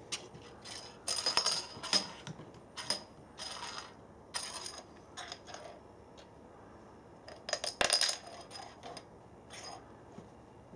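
A small domino piece clattering and skittering across a wooden floor as a cat bats it with its paw, in several short bursts of clicks. The loudest bursts come about a second in and again about eight seconds in.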